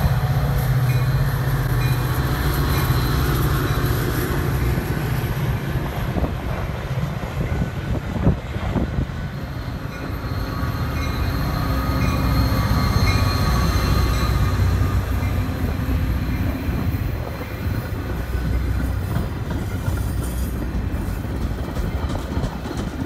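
Metra diesel locomotive passing close with a steady low engine drone, followed by bilevel passenger cars rumbling by on the rails.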